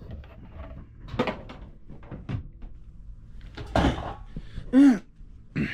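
Knocks, bumps and clatter of stored items being shifted and dragged in a cluttered shed, with a louder clatter about four seconds in and a short, loud pitched sound that rises and falls just before five seconds.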